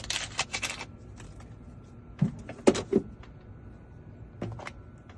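A quick run of button taps on a key-cutting machine's keypad, then a few clicks and knocks of handling the machine, about two to three seconds in and again near the end, as it is set up to cut a key.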